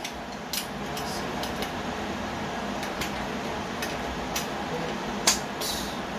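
Scattered light clicks and taps of utensils and cookware in a kitchen, about seven in all, the sharpest one about five seconds in, over a steady background hiss and hum.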